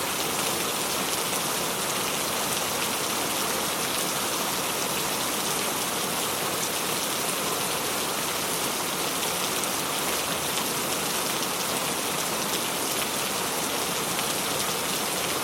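Steady rain falling: an even, unbroken hiss of many drops hitting a surface, with fine individual drop ticks.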